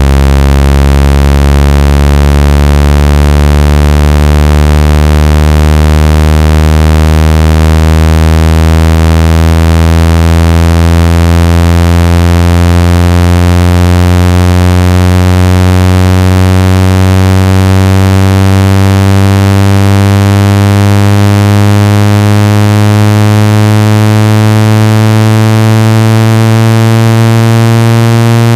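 Loud synthesized speaker-cleaning tone: a low buzz with many overtones that slowly rises in pitch. It is meant to shake water out of a wet phone speaker or earpiece.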